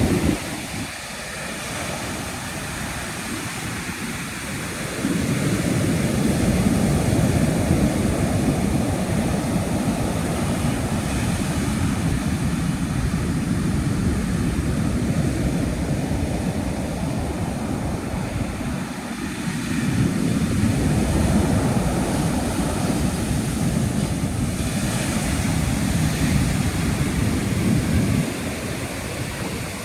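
Atlantic ocean surf breaking and washing up a beach, a steady rush of water that swells and ebbs. A bigger surge builds about five seconds in and another about twenty seconds in, easing near the end.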